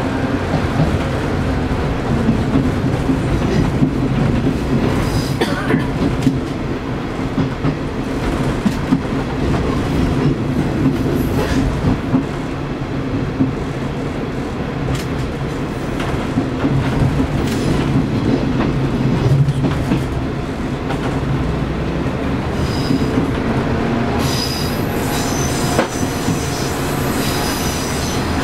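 A KiHa 20 diesel railcar running along the line, heard from inside its cab: the steady drone of its underfloor diesel engine with wheel rumble and occasional clacks over rail joints. A thin high wheel squeal joins in near the end.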